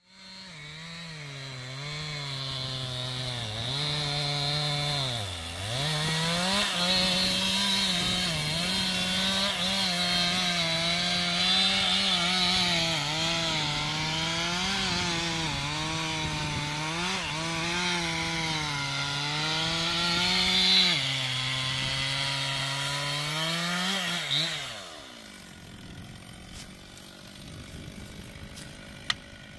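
Chainsaw cutting wood, its engine pitch wavering under load and dipping hard once about five seconds in. About 25 seconds in the throttle is released and the engine falls away, leaving a quieter stretch with a few sharp clicks near the end.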